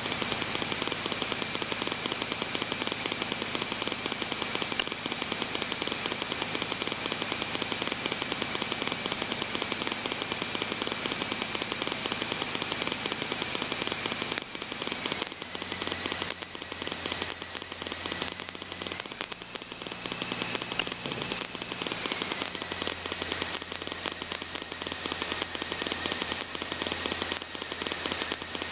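Aerobatic plane's piston engine and propeller running at taxi power, heard from inside the closed cockpit as a steady rattling drone. The engine note shifts down a little about halfway through and again a little later.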